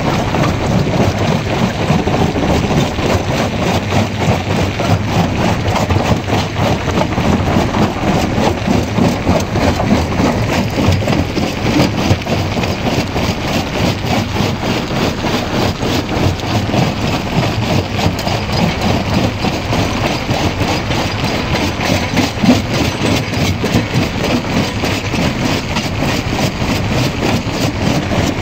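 Jaw crusher running under load: a steady machine drone with a dense, continuous crackling and grinding of rock being broken between the jaw plates.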